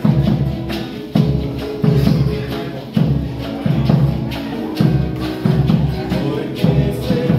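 Small acoustic folk ensemble playing an instrumental passage: marimba and acoustic guitar over a large double-headed bass drum beaten on a steady beat.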